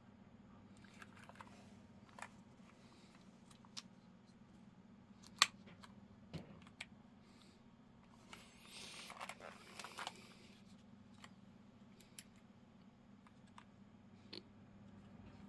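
Scattered single clicks and handling noise, one sharp click about five seconds in and a rustling scrape lasting about two seconds near the middle, over a faint steady low hum; not continuous typing.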